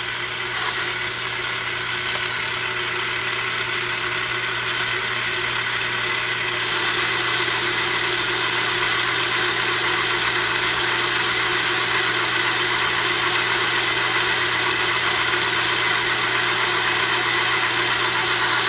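Portable cylinder boring bar running, its spinning cutter boring out the cast-iron sleeve of a Kawasaki 900 two-stroke jet ski cylinder. It is a steady machine drone with a low motor hum. It slowly grows louder, and a sharper high hiss joins in about seven seconds in.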